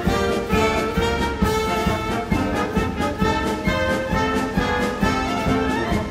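Band music led by brass instruments, with a steady beat under held notes.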